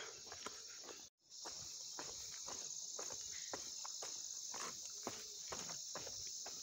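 Steady, high insect chorus, with scattered light clicks; the sound cuts out for a moment about a second in.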